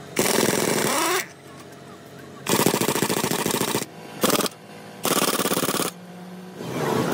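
Pneumatic air tool hammering rapidly in four bursts of about a second each, the third one short, with quiet gaps between them.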